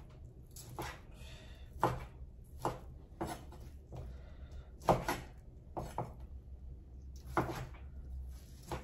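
Kitchen knife chopping through pork on a wooden cutting board: irregular sharp knocks of the blade hitting the board, roughly one a second, some in quick pairs.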